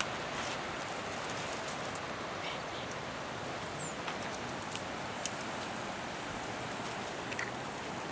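Outdoor ambience in dry scrub: a steady hiss with scattered light crackles and ticks, as of dry twigs and leaves, and one short high chirp a little before the middle.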